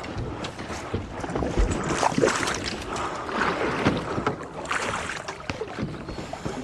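Water and wind noise aboard a small boat drifting at sea in a swell, with scattered knocks and taps of gear against the boat.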